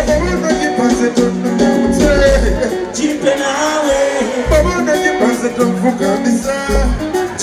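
Live reggae band playing, with a lead vocalist singing over deep bass notes, guitar and hand-drum percussion.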